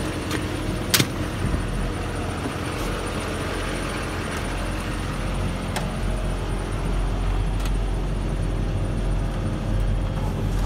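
2005 GMC C5500 dump truck's engine idling steadily, with one sharp click about a second in.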